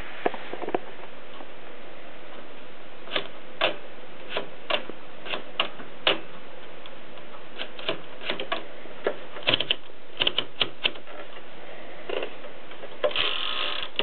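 Mechanism of a red 1970s Brillant manual typewriter being worked by hand: sharp single clicks at irregular intervals, then a longer rattle near the end.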